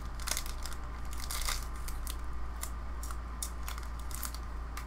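Foil trading-card booster pack wrapper crinkling and tearing as it is pulled open and the cards are slid out, a run of sharp, irregular crackles.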